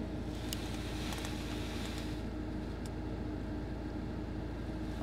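Steady low rumble and faint hiss of a car cabin, with a steady low hum running through it. A quiet gap between voice transmissions on the radio.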